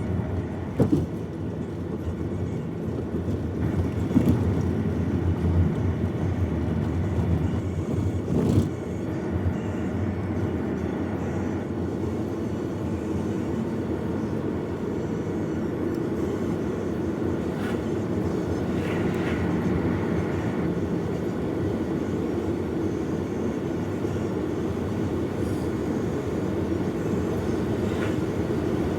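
Steady low rumble of a vehicle in motion, heard from inside, with a few short sharp sounds in the first nine seconds.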